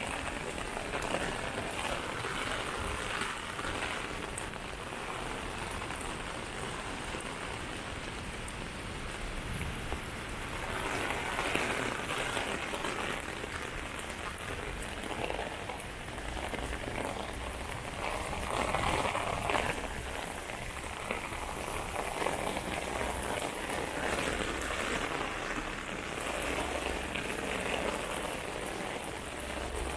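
Heavy rain pattering on pavement and on an umbrella overhead, a steady hiss that swells louder a couple of times.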